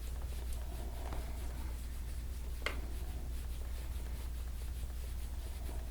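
Faint rubbing and scraping on skin from hands-on soft-tissue massage, over a steady low hum, with one sharp click about halfway through.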